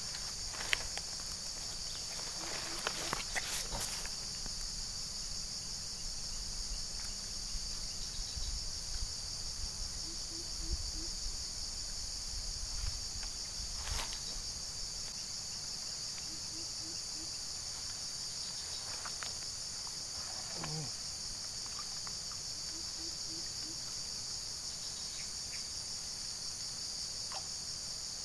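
Steady, high-pitched chorus of insects, with a few faint knocks and clicks about three seconds in and again around the middle.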